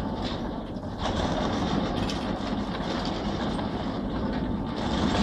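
Doppelmayr triple chairlift's valley-station bullwheel and haul cable running, with the chairs passing round the return: a steady mechanical running noise with faint clatter.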